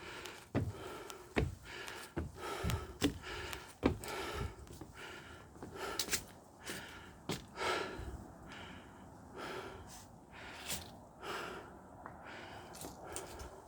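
A person breathing hard, in gasps, with a steady run of short knocks like footsteps, about one or two a second, fading out in the second half.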